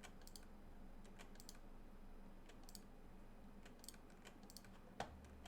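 Faint, scattered clicks at a computer, mostly in quick pairs, with one sharper click about five seconds in.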